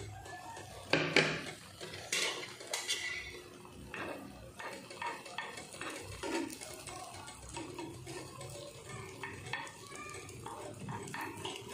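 A porcelain cup clinking down onto its saucer, a few sharp clinks in the first three seconds with the loudest about a second in, then a metal spoon scraping and tapping in a non-stick frying pan as it spreads pancake batter.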